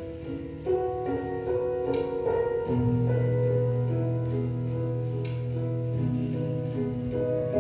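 Instrumental dance music of long held notes, with a deep bass note coming in about three seconds in.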